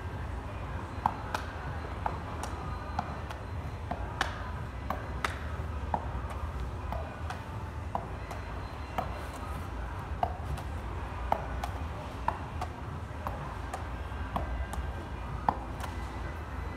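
Rubber reaction ball thrown repeatedly against a cinder-block wall and caught in gloved hands: sharp, irregular taps about one or two a second over a steady low hum.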